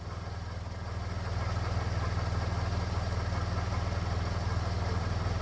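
Car engine idling steadily, a low even hum that grows a little louder after about a second.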